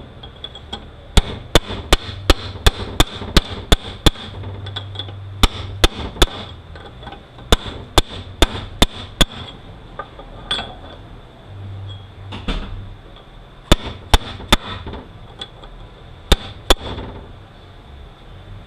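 Hammer striking a chisel against a nut on a Toyota U760E automatic transaxle, driving the nut loose because no socket fits it. The blows are sharp metal-on-metal hits, several a second, in runs with short pauses between.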